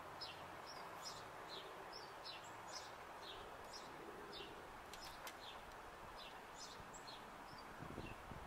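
Small songbirds chirping: short, high chirps that fall in pitch, roughly two a second, over a faint steady background hiss.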